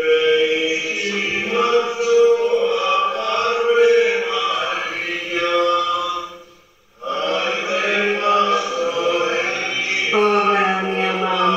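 A group of voices singing a hymn together in long held notes, the closing hymn at the end of Mass. The singing breaks off briefly about six and a half seconds in, then starts again.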